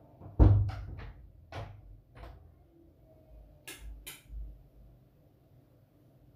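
Stainless-steel mesh strainer knocking against the rims of metal cooking pots as par-boiled rice is scooped out and tipped into the biryani pot. One sharp knock about half a second in, then a run of lighter clicks and taps with a few dull thumps.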